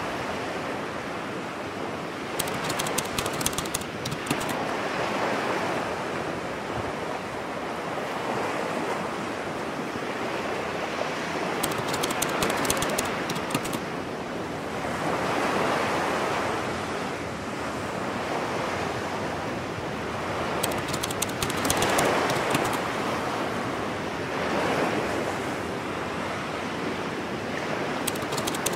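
Ocean surf breaking on a beach, the wash swelling and easing every few seconds, with patches of fine crackling hiss.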